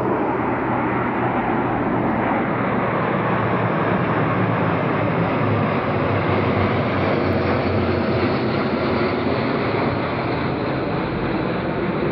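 Formation of about a dozen aircraft flying overhead: the steady, blended drone of their engines.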